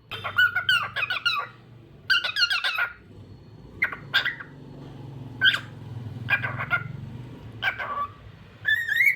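Cockatiel chattering: two runs of rapid warbling chirps in the first three seconds, then short single chirps about once a second.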